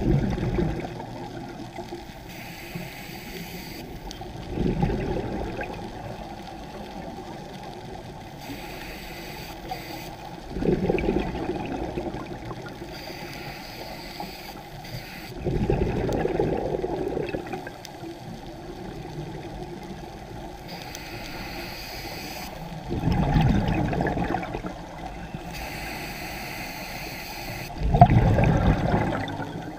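Scuba breathing through a regulator, heard underwater: six gushes of exhaled bubbles, one every five to seven seconds, with a fainter hiss of inhalation between them.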